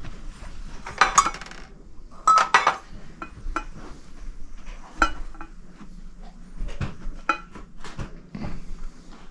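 Metal cups and flatware clinking against each other and a metal tray, in two loud clusters about one and two and a half seconds in, then scattered lighter clinks and knocks.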